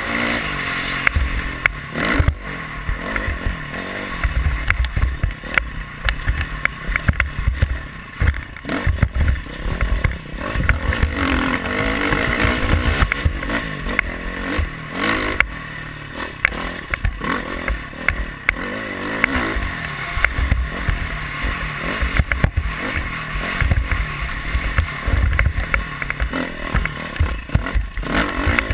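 Dirt bike engine running at changing revs, rising and falling as the bike is ridden over rough ground, with heavy wind rumble on the microphone and frequent knocks and rattles from the bumps.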